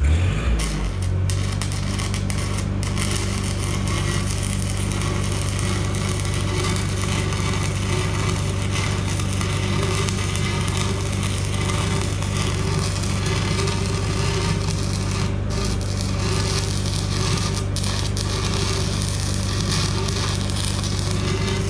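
Stick-welding arc crackling steadily and unbroken for the whole stretch as an E6010 root pass is run into a gouged-out crack in thin steel, over a steady low hum.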